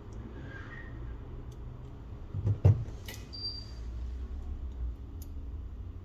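Light clicks and one sharp knock about two and a half seconds in, over a low steady hum. A short high chirp a little after three seconds.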